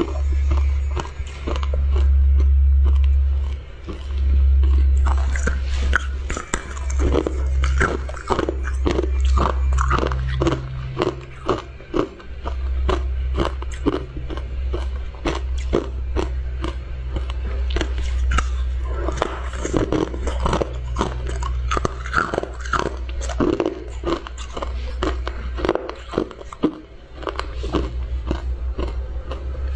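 Close-up biting and crunching of brittle, glassy golden discs, dense sharp cracks followed by chewing, over a steady low hum.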